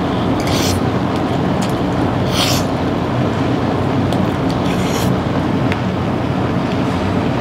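A steady low hum of room noise runs throughout, with three short hissy mouth noises from someone eating a forkful of stuffed pasta, about half a second, two and a half seconds and five seconds in.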